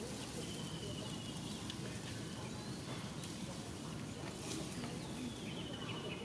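Outdoor ambience: a steady low rumble of background noise with a small bird's high, rapid trill twice, about half a second in and again about four and a half seconds in.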